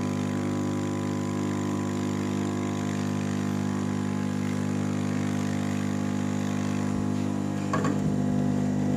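Hot air rework station's blower running steadily, a constant motor hum, as its nozzle heats a water-damaged phone circuit board to burn off carbon and corrosion that may be causing a short. A brief clatter of handling about eight seconds in.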